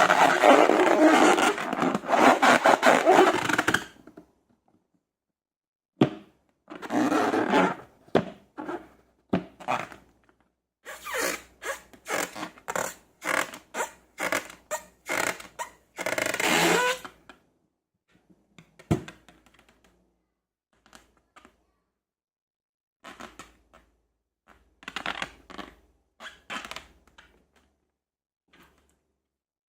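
Hand-handling sounds of slime making: a dense scraping rush for the first few seconds, then uneven runs of short scrapes and squishes, with a single sharp knock about two-thirds of the way through and a few softer scrapes near the end.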